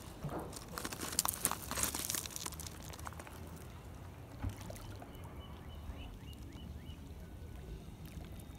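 Water splashing and trickling at the lake's edge, with a cluster of sharp splashes in the first few seconds, then quieter lapping. A short run of about eight quick high chirps sounds in the second half.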